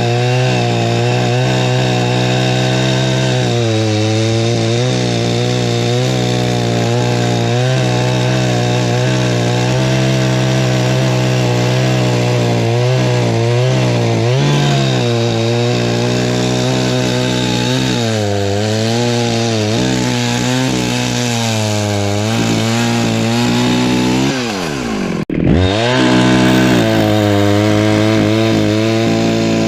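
Perla Barb 84cc two-stroke chainsaw running under load while cutting firewood, its pitch wavering as the chain bites. About 25 seconds in, the pitch drops sharply and the sound cuts out for an instant, then the saw runs on at full speed.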